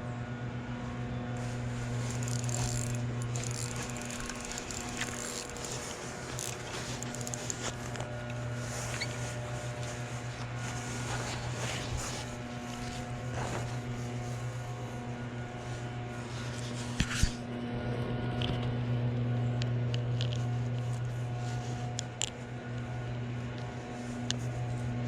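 A small motor hums steadily and low throughout, with scattered clicks and handling rustles over it and a sharp double knock near the middle.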